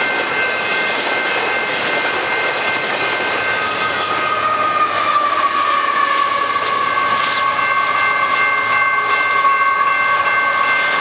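Double-stack intermodal train rolling past: steady wheel-on-rail noise with thin, steady whining tones. Around the middle the rear Canadian Pacific GE AC4400CW distributed-power locomotive goes by, adding a tone that dips slightly in pitch as it passes.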